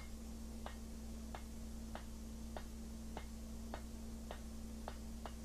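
Hammer striking red-hot iron laid over an anvil-mounted cutter (hardy) to cut the nose of a forged wolf head shorter: about ten light, evenly spaced blows, roughly one every two-thirds of a second, over a steady low hum.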